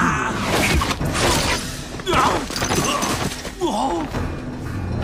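Film fight-scene soundtrack: dramatic music under repeated whooshing and crashing sound effects, with a voice crying out a couple of times.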